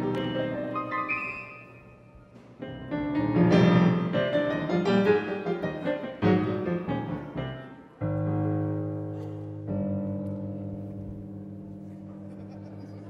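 Solo piano playing: a soft passage, then a quick, busy run of notes from about two and a half seconds in, then low chords struck about eight and ten seconds in and left to ring and slowly fade.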